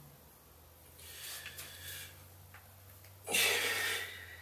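A man breathing out hard while holding flexed poses: a softer breath about a second in, then a louder, sharper exhale about three seconds in that lasts under a second.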